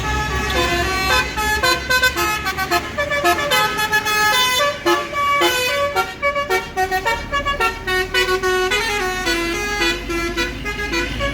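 Tour bus's Basuri telolet horn playing a fast multi-note tune, the pitch stepping from note to note several times a second, over the bus engine's low rumble.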